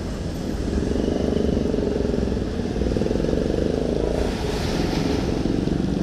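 A motor vehicle's engine running close by as it passes, coming up loudly about a second in and easing off a little past the middle.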